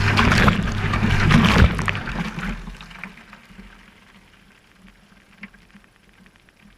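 Water sloshing and tumbling inside a Whirlpool washing machine's drum over a steady motor hum, heard from inside the drum. The sound dies away over about two seconds as the drum comes to rest, leaving only faint ticks.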